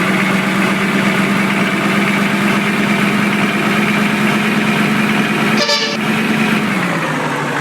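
Basuri 'telolet' vehicle horn sounding a held tone over a running engine, with a short, sharper blast about five and a half seconds in, after which the tone drops lower.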